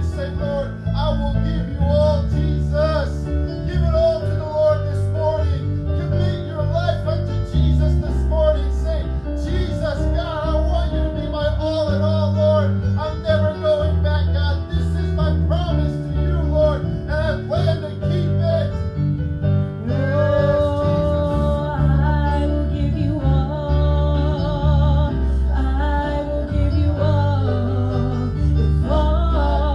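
A worship song: a woman singing into a microphone over a band with guitar and a heavy bass line.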